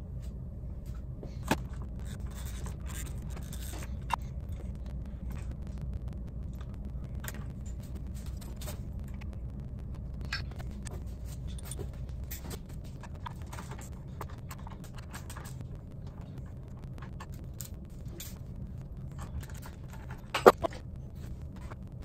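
Scattered clicks and scrapes of Allen keys and small metal parts as RAM clamp mounts are unbolted and pulled off a motorcycle handlebar, with a sharper clack near the end. A steady low hum runs underneath and drops a little about halfway through.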